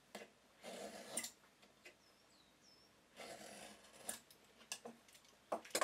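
Knife scoring a line across a sapele board along the blade of a combination square: short scraping strokes, two in the first second or so and another about three seconds in, followed by a few light ticks and taps near the end.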